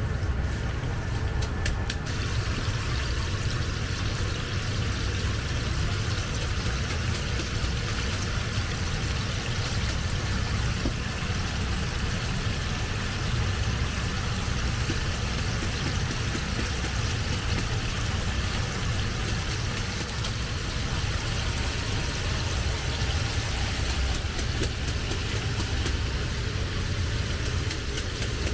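Chicken deep-frying in a stainless commercial fryer: the oil sizzles and bubbles steadily, over a constant low rumble.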